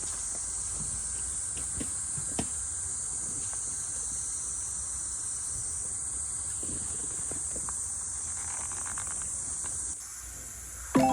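Steady high-pitched chorus of insects, with scattered faint ticks and knocks.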